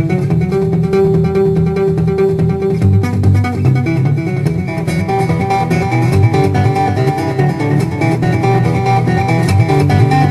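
Instrumental music led by plucked guitar, with a bass line and a steady rhythm.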